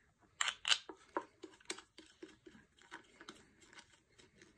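Light plastic clicks and ticks as a thumbscrew is turned through a GoPro mount joining the camera frame to a floating hand grip. A couple of louder clicks come in the first second, then a run of fainter ticks, a few a second.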